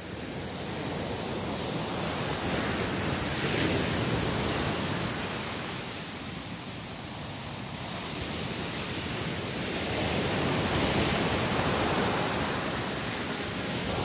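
Small waves washing on a sandy beach: a steady rushing hiss that swells twice, about three seconds in and again about eleven seconds in.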